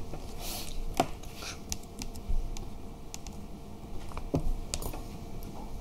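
Scattered clicks and taps on a laptop's keys and touchpad, a few irregular strokes, with a faint steady hum beneath.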